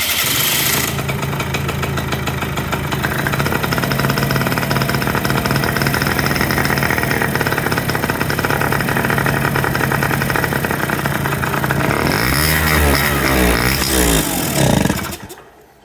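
Kymco 50cc two-stroke scooter engine cranked on the electric starter with the air intake covered by hand, catching within about a second and running steadily, then revved up and down several times near the end before cutting off. It runs only when choked by hand, because the electric auto-choke is not working.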